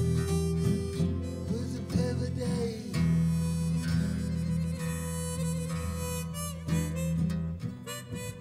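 Live acoustic band: a man sings a short phrase early on, then a harmonica takes a solo of long held notes over strummed acoustic guitars.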